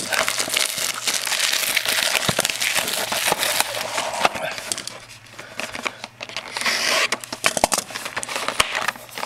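Plastic shrink wrap crinkling and crackling as it is torn and peeled off a sealed trading-card hobby box, with many sharp crackles.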